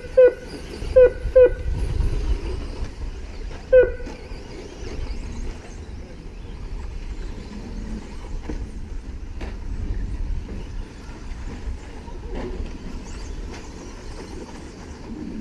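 Short, sharp electronic beeps: three in quick succession near the start and one more about four seconds in, over a steady low rumble.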